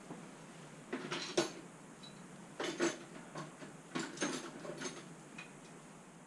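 Metal tools and parts clinking and clanking in a few irregular bursts, as in hand work on a scooter's front shock.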